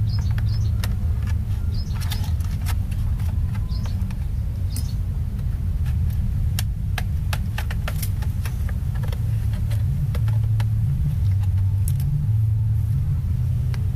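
A steady low rumble, with scattered light clicks and taps as a plastic laptop is turned over and handled.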